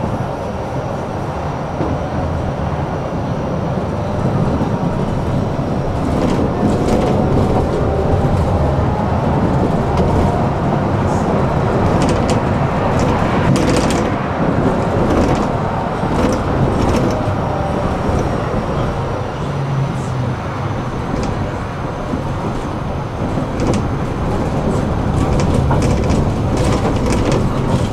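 A tram under way, heard from aboard: a steady rumble of wheels on rails, with scattered clicks and knocks over the track and a faint whine that rises and falls as the tram speeds up and slows.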